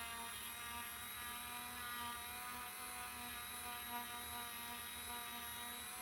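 A small electric motor running steadily with a whine of several held tones.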